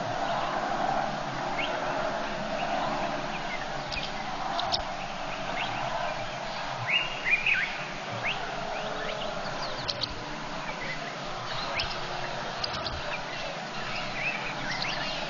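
Scattered bird chirps over a steady background hiss of wild ambience, with a louder cluster of calls about seven seconds in.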